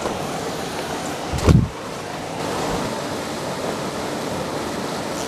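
Steady rush of water pouring over a spillway, with one low thump about a second and a half in.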